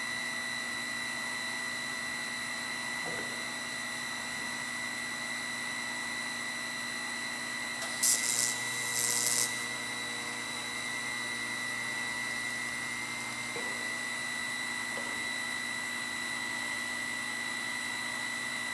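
A single TIG tack weld on 18-gauge steel sheet from a Miller Syncrowave 180 SD: the arc strikes about eight seconds in with a loud hiss lasting about a second and a half. A steady high whine runs underneath throughout.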